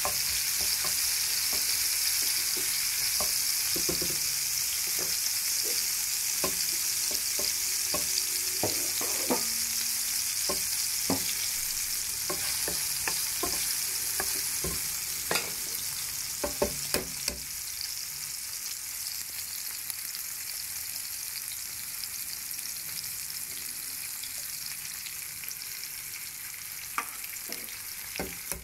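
Garlic and tomato wedges sizzling in hot oil in a nonstick frying pan, a steady hiss that slowly grows quieter. Clicks and scrapes from a wooden spatula stirring come often in the first half, with a few sharper taps a little past the middle.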